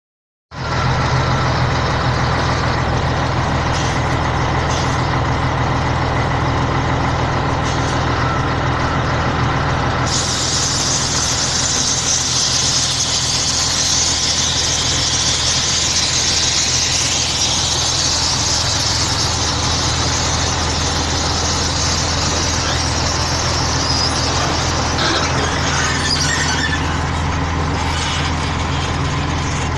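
Scania truck's diesel engine running steadily. About ten seconds in a loud high hiss starts and runs alongside it for some fifteen seconds before fading.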